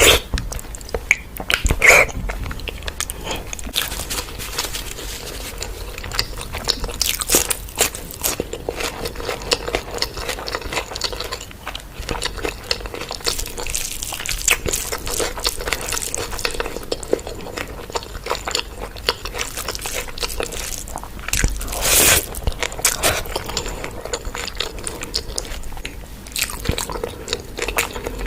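A person chewing and biting food, with wet clicks and crunches running on steadily and a louder crunch about 22 seconds in.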